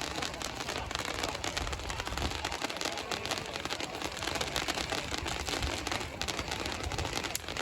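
Fireworks and firecrackers going off in a dense, continuous crackle: many small bangs packed closely together, with no let-up.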